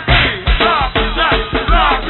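Live go-go band music on a lo-fi PA tape: a steady drum and percussion beat with pitched, sliding parts over it, all dull and cut off in the treble.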